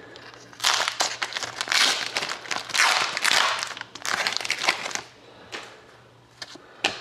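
Plastic wrapper of a trading card pack crinkling as it is handled and opened, in several loud rustling bursts over the first few seconds, then a few light clicks.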